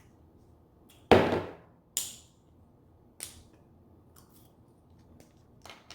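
King crab leg shell cracking, close to the microphone: a loud sharp crack about a second in, a second about a second later, and a smaller third, with faint clicks near the end.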